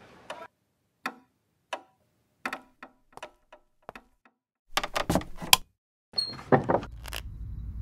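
A clock ticking slowly for the first few seconds, then a door opening and shutting with a louder clatter of knocks and thuds. A low rumble begins near the end.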